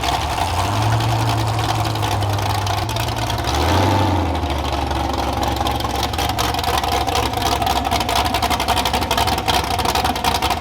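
A car engine idling steadily; its idle drops to a lower pitch a little under four seconds in.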